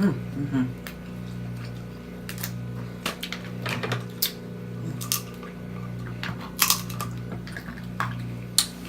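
Eating snow crab legs by hand: scattered sharp clicks and snaps of shell and mouth, getting louder near the end, over a steady low hum.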